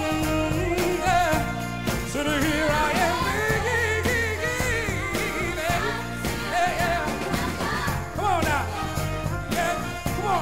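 Soul song: a male lead vocal sings long, bending melodic lines over a full band with a steady drum beat.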